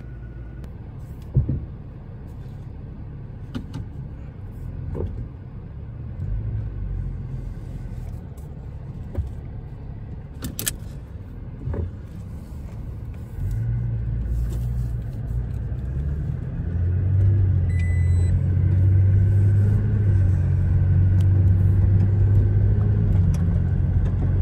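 Low rumble of road and engine noise inside a moving vehicle's cabin, growing louder about halfway through, with a few sharp clicks and knocks.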